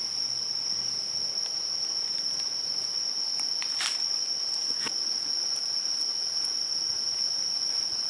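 Insects trilling in one steady, unbroken high-pitched tone. A brief scrape comes about four seconds in, and a few faint clicks are scattered through it.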